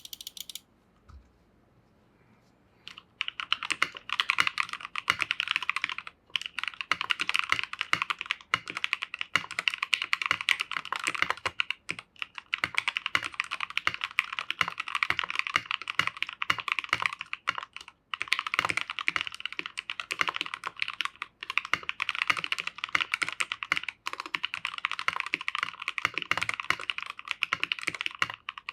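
Fast typing on a custom 65% mechanical keyboard with lubed Gateron Yellow KS-3 linear switches and KAM Wraith keycaps in an acrylic sandwich-mount case: a dense run of keystrokes that starts about three seconds in, after a soft thump, and goes on with brief pauses now and then.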